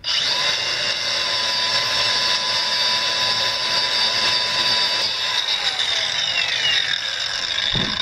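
Small cordless angle grinder with a wire wheel brush, starting abruptly and running at a steady high whine, then switched off about five seconds in and winding down with a falling pitch.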